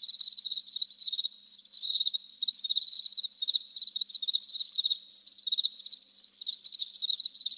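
Crickets chirping in a steady, rapid pulsing trill: the stock "crickets" sound effect for an awkward silence.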